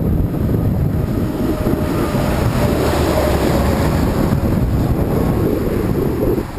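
Wind rushing and buffeting over the microphone of a camera on a moving bicycle, with a car's tyres and engine swelling as it overtakes about three seconds in.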